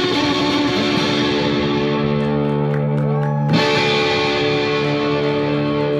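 Semi-hollow electric guitar played through an Orange amplifier with distortion. Busy picked notes give way, about three and a half seconds in, to a quick upward slide and then a long ringing, sustained chord.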